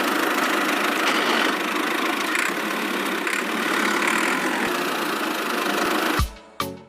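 Small engine of a miniature tractor running steadily, cutting off abruptly about six seconds in, followed by a short musical note near the end.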